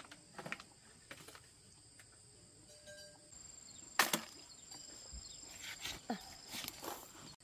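Scattered sharp knocks, with one loud knock about four seconds in, over a thin steady high insect-like buzz that starts about three seconds in.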